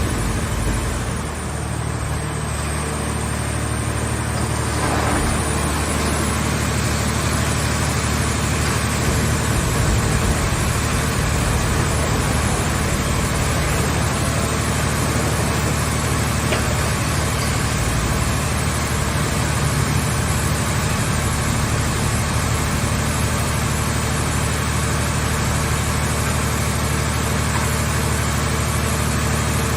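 Hydraulic scrap-car baler's power unit running steadily: a constant low, even hum of motor and hydraulic pump.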